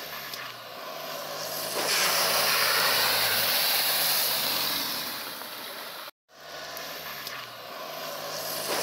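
Willys pickup truck engine running under load with a steady low hum, joined about two seconds in by a loud hissing roar that fades out over the next few seconds. The sound drops out completely for a moment just past six seconds, then the engine hum returns.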